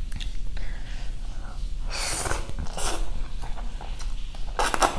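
A person breathing out heavily in a few hissing breaths: two about two and three seconds in, and a stronger one near the end.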